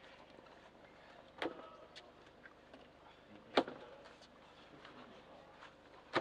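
Three sharp knocks about two seconds apart, the middle one loudest, over faint open-air background.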